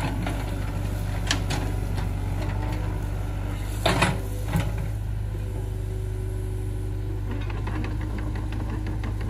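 Excavator engine running steadily, with a few sharp knocks about a second in and a short cluster of them around four seconds in.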